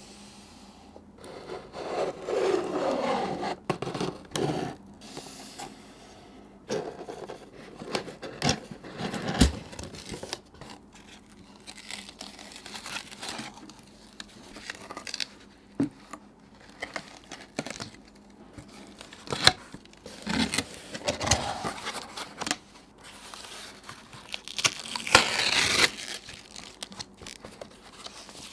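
Cardboard and paper packaging of an iPhone 12 box being handled and opened: irregular tearing, scraping and rubbing, with a few sharp taps.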